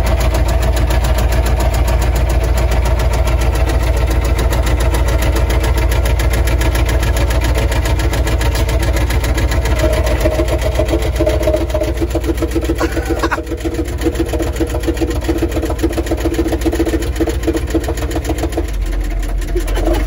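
Humvee's V8 diesel engine running loud, heard from inside the cab, with a rapid, even knocking clatter: the engine has a rod knock after running on low oil pressure.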